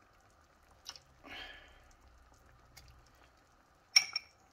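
A fork working cream cheese out of a bowl: a soft click and a brief scrape, then a sharp, ringing clink of metal on the bowl near the end.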